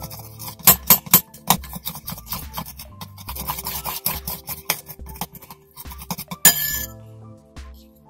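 Metal spoon stirring thick glue-and-shaving-foam slime in a glass bowl, with repeated clinks and scrapes against the glass and one sharper clack late on. Background music plays throughout.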